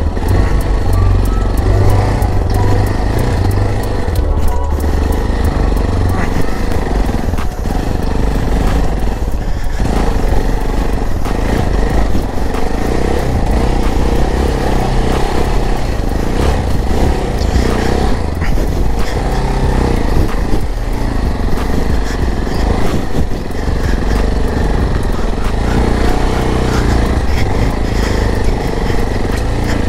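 Trail motorcycle running under way: a steady, loud engine drone with a deep low rumble and scattered clicks and rattles.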